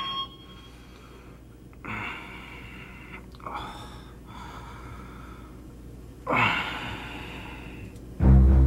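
A man's heavy breathing: three breathy gasps, about two, three and a half and six and a half seconds in, the last the loudest. Music starts again loudly just before the end.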